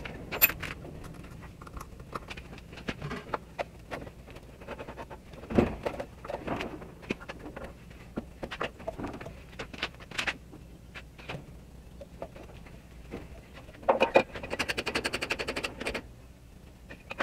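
Clicks, knocks and clunks of a Rockwell/Delta radial drill press's cast-iron head and clamp handles being loosened, swung and set back by hand, with one heavier knock about five seconds in. Near the end comes a fast rattling run of clicks lasting about two seconds.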